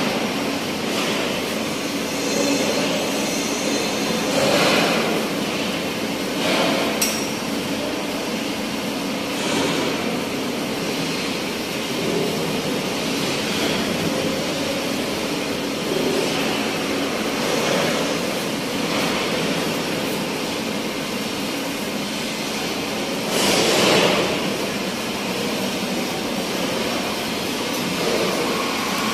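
A steady mechanical-sounding din with occasional metallic clinks and a few louder swells of noise, one of them near the end.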